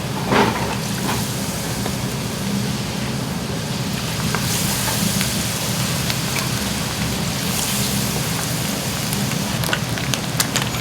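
Food deep-frying in hot oil, a steady sizzle over a low hum, with a few sharp clicks near the end.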